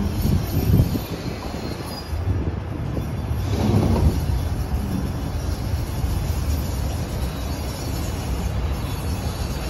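PATH train rolling slowly over the yard tracks and switches: a steady low rumble of wheels on rail, swelling louder about a second in and again around four seconds in.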